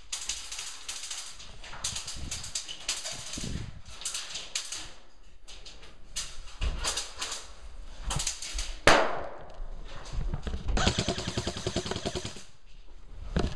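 Airsoft guns firing: scattered short shots and bursts, with one sharp loud crack about nine seconds in and a longer rapid string of shots near the end.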